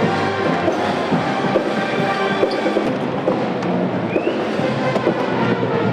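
Music with a steady drum beat and sustained instruments, at a constant loud level.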